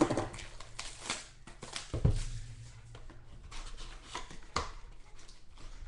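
Packs and cards from a box of trading cards being handled and opened: scattered crinkles, taps and clicks, with one louder knock about two seconds in.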